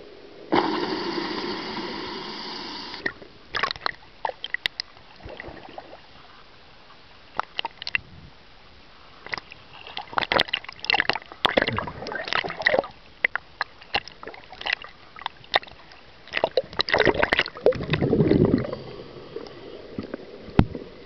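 Underwater audio through a camera housing: a loud rush of scuba exhaust bubbles about half a second in, then scattered clicks and crackles. In the middle, water sloshing and splashing against the housing at the surface, and near the end another rushing burst.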